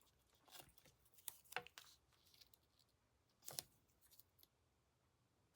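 Near silence with faint handling of double-sided adhesive tape and cardstock: a few soft rustles and clicks, the loudest about three and a half seconds in.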